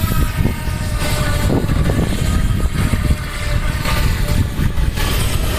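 Small brushed metal-can electric motor of a toy RC boat whining steadily as the boat speeds across the water, under a heavy, uneven wind rumble on the microphone, which is the loudest sound.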